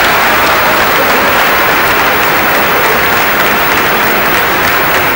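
Large lecture-hall crowd of students applauding, a dense steady clapping.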